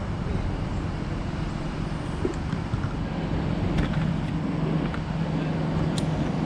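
Engine running steadily with a low, even hum, with a few faint clicks about four and six seconds in.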